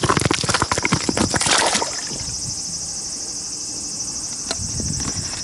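A quick run of rustling and scraping clicks for about two seconds, then a steady high insect drone carries on alone.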